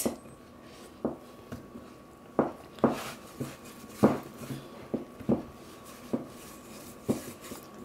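Hands kneading a stiff flour dough in a mixing bowl: irregular soft thumps and knocks as the dough is pressed and turned against the bowl, about ten in all. A faint steady tone runs underneath.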